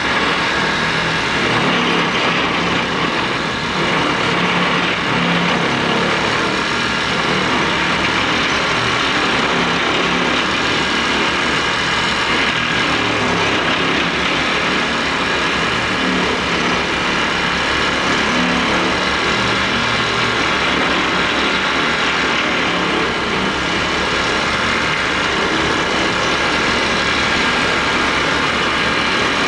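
Excavator-mounted vibratory pile driver running steadily, along with the excavator's engine, as it drives a wooden pile down into the seabed.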